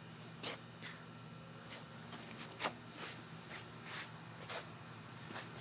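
Insects trilling steadily at a high pitch, with a few faint clicks scattered through.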